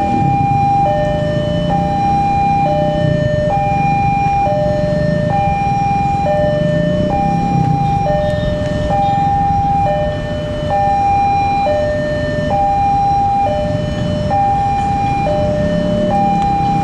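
Railway level-crossing warning alarm sounding its two-tone signal: a higher and a lower tone alternate, each lasting just under a second, over a low rumble.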